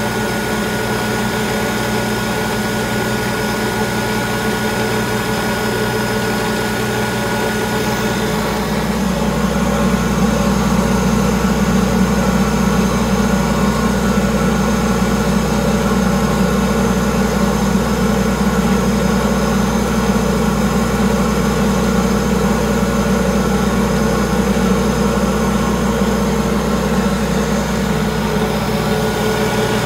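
Stainless-steel sugar grinding mill running steadily, its motor and grinder humming as it mills sugar into powder. The hum grows louder and deeper about eight seconds in, then holds.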